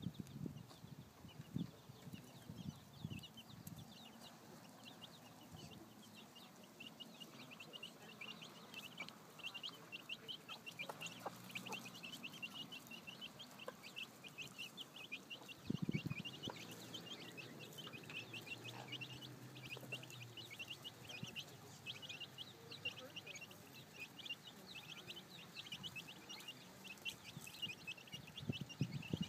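Chicks peeping in quick, high, continuous chirps, with a hen's low clucks now and then.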